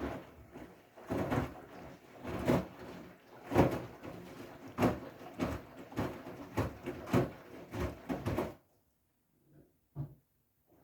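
Siemens i-Dos washing machine on its wool/delicate programme, the drum turning and the laundry thudding and flopping inside it in an uneven string of soft knocks. The drum stops about two seconds before the end, leaving quiet with a couple of faint knocks.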